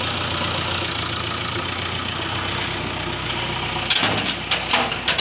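Diesel engine of a JCB 3DX backhoe loader running steadily. About four seconds in, a quick run of sharp knocks and clatters comes in over it.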